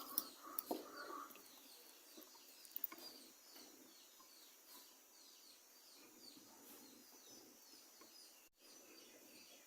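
Near silence with a small bird chirping faintly over and over, about three short falling chirps a second, and a few soft clicks in the first three seconds.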